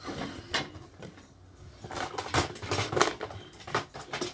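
Toy train track pieces clattering and clicking as they are rummaged through and handled while someone searches for a short straight piece. Several sharp knocks, the loudest about two and a half and three seconds in, over a steady rustle.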